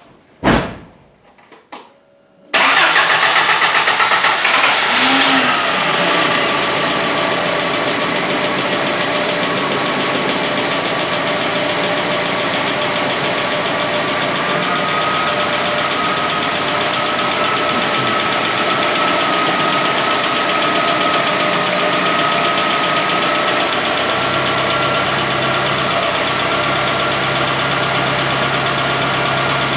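Nissan Z24S 2.4-litre four-cylinder engine, freshly rebuilt with new rod bearings, starting suddenly about two and a half seconds in after a sharp click, running faster and louder for a few seconds, then settling to a steady idle. A light tick remains, which the owner puts down to the top end, probably an exhaust valve, and not the rod-bearing knock that the new bearings cured.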